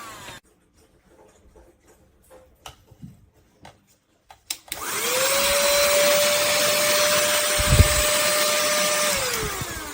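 Cordless handheld mini vacuum cleaner: after a few seconds of light clicks, its motor is switched on, spins up to a steady whine and runs for about four seconds, with one low thump, then is switched off and winds down near the end.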